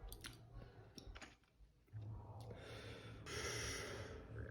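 Person breathing hard through the mouth, long airy breaths blown out from about halfway through, after a few faint clicks at the start: a reaction to a mouth burning from very hot sauce.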